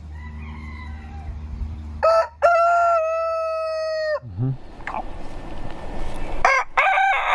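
Rooster crowing: a short note, then a long, held crow about two seconds in, and another crow starting near the end.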